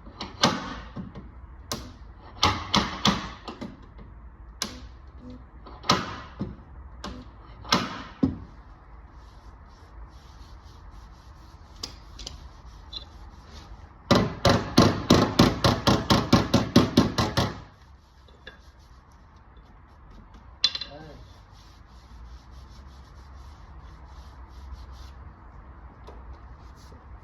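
Hand tools working on car body sheet metal: scattered knocks and scrapes, then about three and a half seconds of quick, regular strokes, roughly four a second, over a steady low hum.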